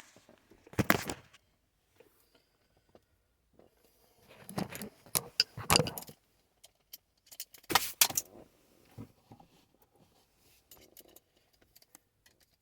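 Hard plastic and metal parts clicking and rattling as the 8.4-inch screen unit is unclipped and pulled free. There are three bursts of clatter: about a second in, in the middle, and about two-thirds of the way through, with light ticks between.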